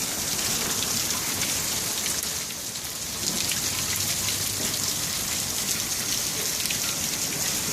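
Heavy rain from a tornadic thunderstorm falling steadily: a dense, even hiss with a brief dip in level about two and a half seconds in.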